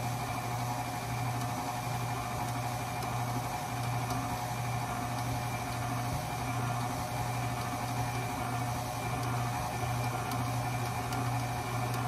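KitchenAid Artisan stand mixer running steadily at a lowered speed, its motor humming evenly as the wire whisk beats butter and sugar in the steel bowl.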